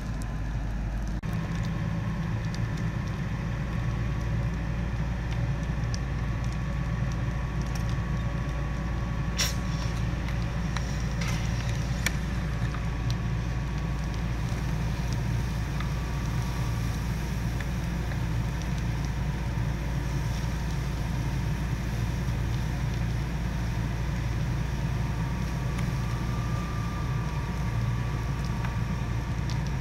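Fire engine's diesel engine running steadily with its pump feeding the hose line, a constant low rumble. A couple of sharp pops stand out about ten and twelve seconds in.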